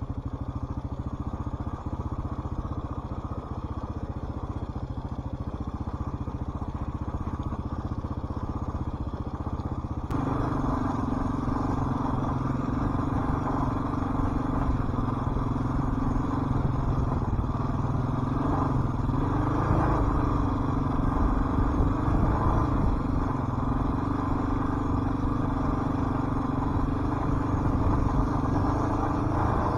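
Dual-sport motorcycle engine running under way, steady at first, then abruptly louder about ten seconds in, its pitch rising and falling a little several times in the middle as the throttle changes.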